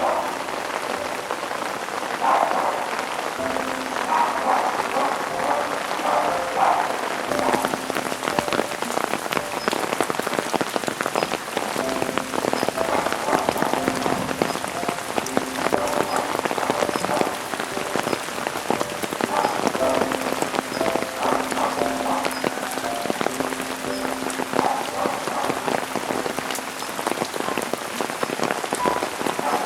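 Steady rain falling, full of small drip ticks, under soft background music of long held notes.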